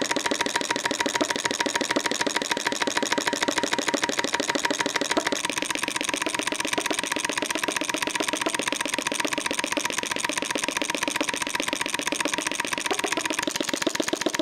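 Homemade model flame-licker (vacuum) engine running steadily, each stroke drawing the gas flame into the cylinder, with a rapid, even beat that sounds like a nice diesel.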